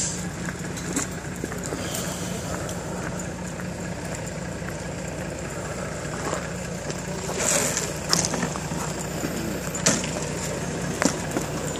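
Heavy truck engine running steadily, with a brief hiss about seven seconds in and a few sharp knocks near the end.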